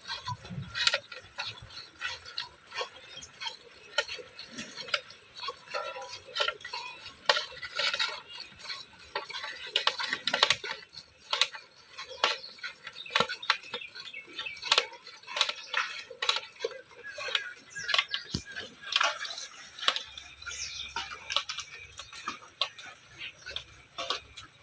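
Buffalo being milked by hand into a steel pail: a steady, uneven run of sharp squirts and clinks against the metal.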